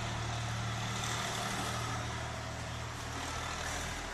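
A steady low mechanical hum, like an engine running, over an even background hiss with no distinct strokes or impacts.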